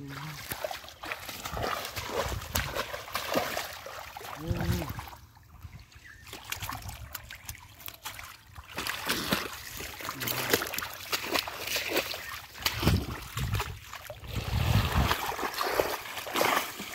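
Hands splashing and sloshing in shallow water among water hyacinth, with irregular splashes and dribbling water as a catfish is grabbed by hand.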